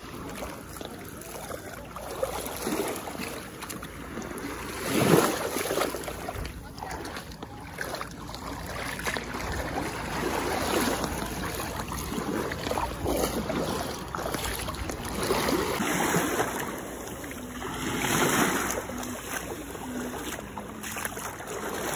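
Sea waves washing onto a beach, a steady rush that swells into louder surges every few seconds.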